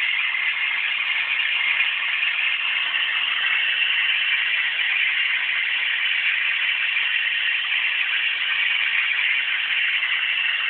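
Vacuum cleaner running steadily, a constant high-pitched rushing hiss.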